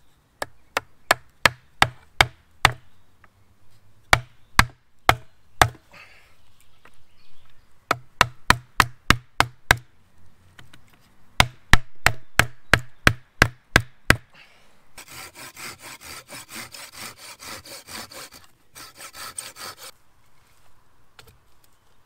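Wooden mallet knocking on a wooden peg, driving it into a hole in a wooden crossbar: sharp wood-on-wood knocks in four runs of several blows each, about two to three a second. Near the end comes a few seconds of fast, evenly repeated rasping on wood.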